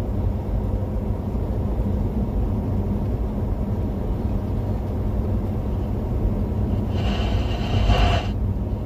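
Steady low road rumble of a moving vehicle, with a hiss carrying a steady high tone for about a second near the end.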